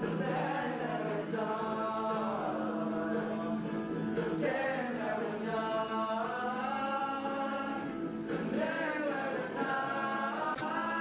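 Choral music: several voices singing long, slow held notes, some of them gliding between pitches.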